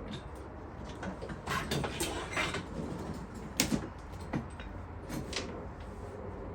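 Hands-on workshop noise from taking a motorcycle apart: metal parts and tools shifting and scraping for a second or so, then a few sharp clicks and knocks.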